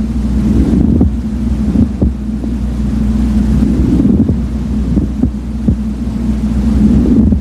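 Lung sounds heard through a stethoscope over the right middle lobe, with a pleural friction rub: breathing swells under a steady low hum, with short scattered clicking rubs through it.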